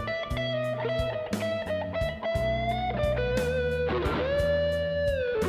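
Electric blues guitar playing a lead fill between sung lines: held notes with string bends, including a note bent up a little before the end and eased back down, over a bass line and drums.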